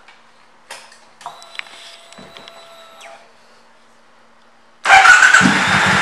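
A few faint clicks, then about five seconds in the 2014 Triumph America LT's 865 cc parallel-twin engine starts suddenly and loudly and settles into an even idle.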